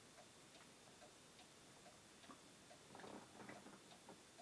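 Near silence with a clock ticking faintly and steadily, and a brief faint rustle about three seconds in.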